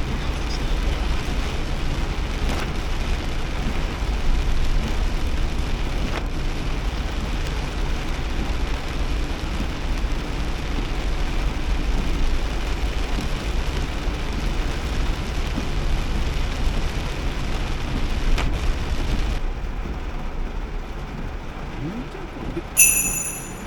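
Heavy rain pelting the body of a moving car, mixed with tyre spray and low road rumble, heard from inside the cabin. The hiss thins about twenty seconds in, and a short high beep sounds near the end.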